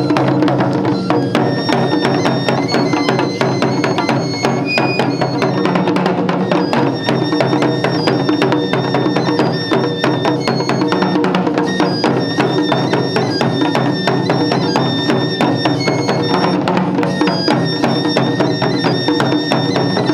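Japanese taiko drum ensemble (wadaiko) playing dense, rapid continuous drumming, with a high piping flute melody over the drums.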